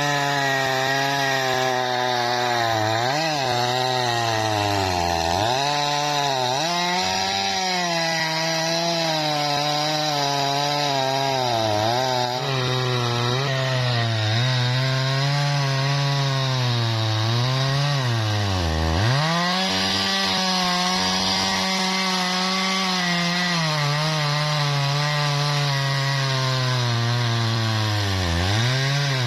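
Jonsered chainsaw running under load, ripping lengthwise through a log of bendo wood. Its engine speed wavers and drops sharply several times as it bogs down in the tough, fibrous wood.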